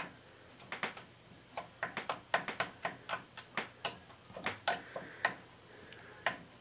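Plastic spoon stirring pears in a plastic mess tray, making a run of irregular light clicks and scrapes, several a second, as it knocks against the tray.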